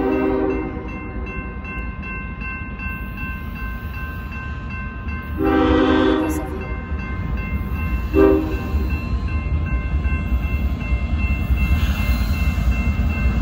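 Diesel freight locomotive's air horn sounding the grade-crossing warning as the train approaches: a long blast trailing off in the first half-second, another about five and a half seconds in lasting about a second, and a short one about eight seconds in. Under it run the low rumble of the oncoming train and the steady ringing of the crossing bell.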